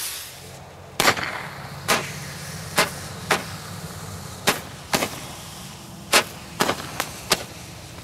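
Two hand-held Roman candle fireworks firing, about a dozen sharp pops spaced irregularly half a second to a second apart as each launches a ball, over a faint burning hiss.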